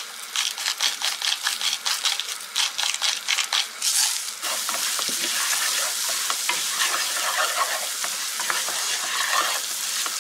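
Bulgur frying in oil and butter in a nonstick pan, stirred with a wooden spoon: quick scraping strokes for the first few seconds, then a steady sizzle as the grains toast.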